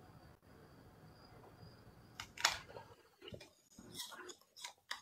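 Faint room tone, then from a little past two seconds in, a string of crunching bites and chews of something crisp, the first bite the loudest.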